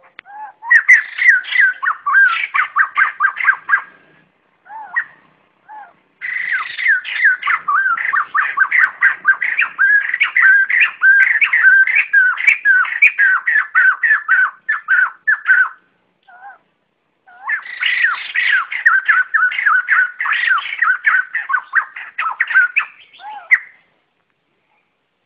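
White-crested laughingthrush (bồ chao) giving its flock-gathering call: three long, loud bouts of rapid repeated notes, about four a second, separated by short pauses with a few single notes. The calls stop shortly before the end.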